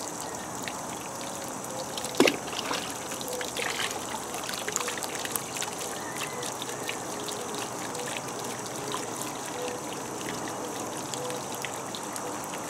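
Thin muddy ore-slimes slurry trickling steadily from a cup onto an upturned bucket and into a tub of gently swirling water. A sharp tap about two seconds in.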